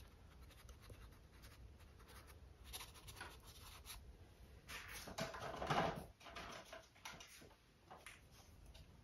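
Faint scratching of a small paintbrush working acrylic paint onto a stretched canvas, in a series of short strokes, louder for about a second some five seconds in.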